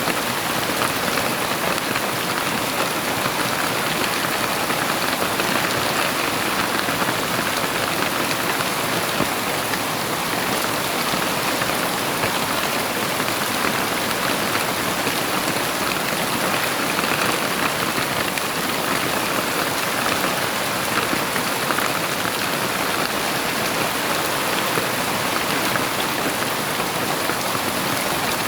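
Heavy rain falling steadily in a dense, even patter of drops.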